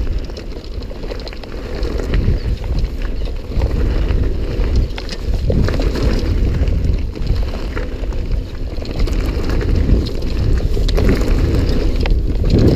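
Wind buffeting the camera microphone as a Jamis Defcon full-suspension mountain bike rolls fast down a dirt trail, with scattered clicks and rattles from the tyres and bike.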